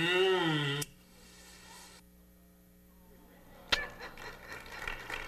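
A voice holds one drawn-out note that rises and falls in pitch for under a second, then stops. A low steady hum follows, broken by a single sharp click about three and a half seconds in.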